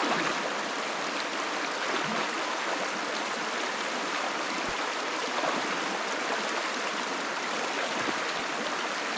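A rocky river at a wading crossing, flowing with a steady rushing sound.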